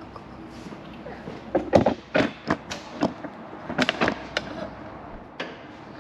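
A run of irregular metal knocks and clunks as the stock muffler is worked loose and pulled out of the side-by-side's frame, busiest from about one and a half to four and a half seconds in.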